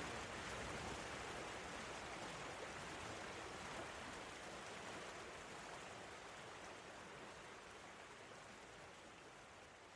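A steady, even hiss of noise, like rain or static, fading slowly out.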